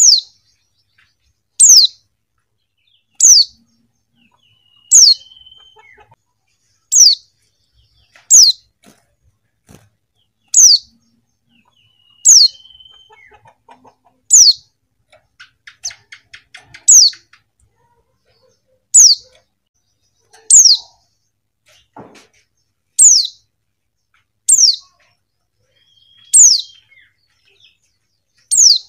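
Female white-eye (pleci) giving a short, high call that slides quickly downward, repeated about every two seconds.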